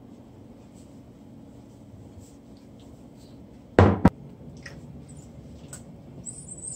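Kitchen handling noises while seasoned pineapple is mixed by hand: faint small clicks, then one loud knock and a sharp click about four seconds in. A hiss starts near the end.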